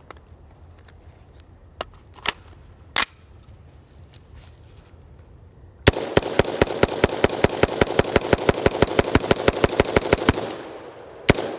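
BCM AR-15 rifle firing 5.56 rounds as fast as the trigger can be pulled: a few single shots, then a rapid string of about six shots a second for some four seconds, then one last shot. This is the end of a five-magazine string fired without cleaning or lubrication.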